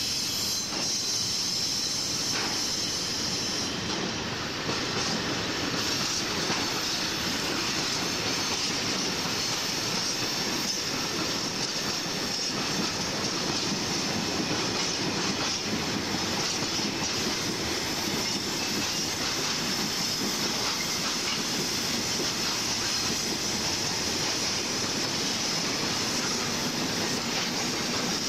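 Freight train wagons rolling past close by: a steady rumble of steel wheels on rail, with a continuous high wheel squeal over it.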